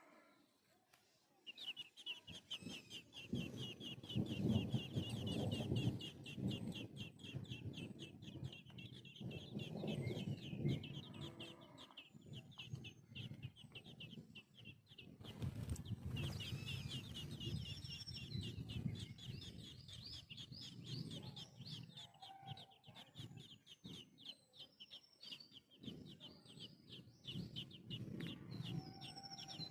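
Domestic chickens clucking while feeding, with a fast, steady string of high chirps starting about a second and a half in and running on beneath the clucks.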